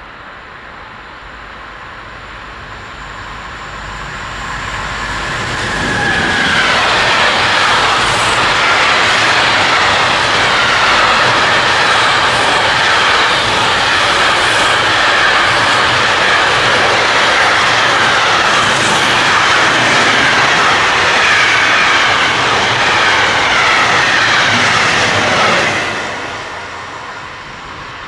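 Container freight train hauled by a Siemens ES 64 F4 (Class 189) electric locomotive passing close by: the sound grows as it approaches, becomes a loud steady noise of wagon wheels on the rails for about twenty seconds, then drops off sharply as the last wagons go by.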